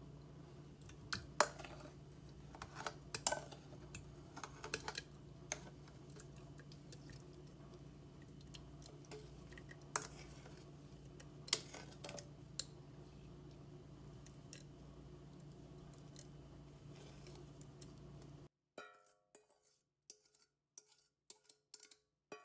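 Berries dropped into a glass jar, landing as irregular clicks and clinks against the glass over a steady low hum. About three quarters of the way in, the sound cuts off to near silence with a few faint short notes.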